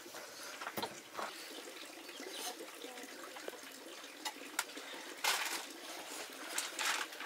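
Scattered light clicks and knocks, with two short bursts of splashing water about five and seven seconds in.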